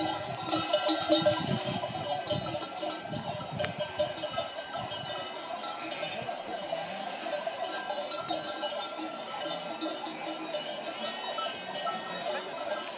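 Dozens of traditional Provençal sheep bells (platelles, piques, clavelas and redons) on Mérinos d'Arles sheep and Rove goats, clanking and jangling together as the flock walks. The many different bells make a dense, continuous jangle.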